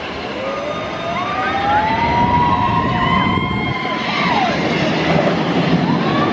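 Big Thunder Mountain Railroad mine train coaster running on its track, its wheels squealing on the curves in long, slowly rising and falling whines. Under the squeal is the rumble of the cars, which grows louder about two seconds in.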